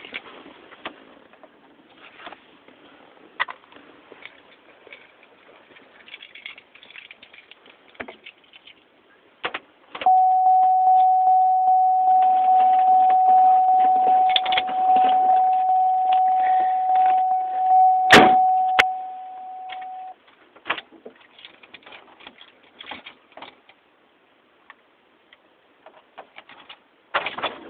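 2005 Chevrolet Monte Carlo's door chime ringing as a rapid repeating ding at one steady pitch for about ten seconds, starting and stopping abruptly, with a sharp click near its end. Before and after it come scattered clicks and rustling of handling in the car.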